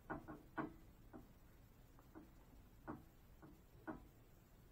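Faint, irregular soft clicks and taps, about eight of them and the loudest in the first second, as a small fabric doll jacket is worked inside out between the fingers.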